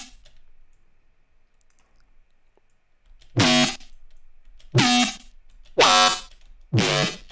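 Serum software-synth bass patch playing short bass stabs: after about three seconds of quiet, four notes about a second apart, each with a quick drop in pitch at its start. This is a tweaked version of the same bass preset, with the LFO slowed down, being played back for resampling.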